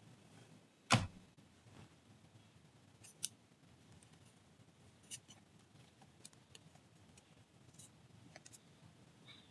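Hands handling an action figure and its packaging: one sharp knock about a second in, then a scatter of faint small clicks.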